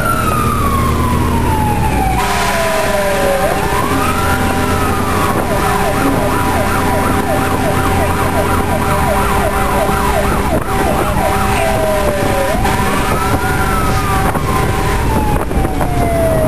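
Fire truck siren sounding as the ladder truck responds. It runs in a slow rising-and-falling wail, switches to a fast yelp of about three cycles a second for several seconds in the middle, then goes back to the wail. A steady tone sounds under it for much of the time.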